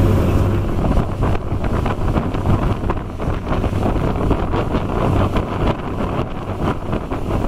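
Pilot boat's engine droning steadily in the wheelhouse. About a second in it gives way to wind buffeting the microphone and water rushing from the hull's wash as the boat runs at speed.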